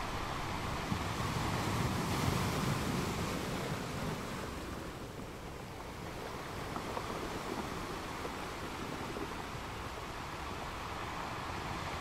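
Ocean surf: waves breaking and washing in, a steady rush of noise that eases a little about five seconds in and then builds again.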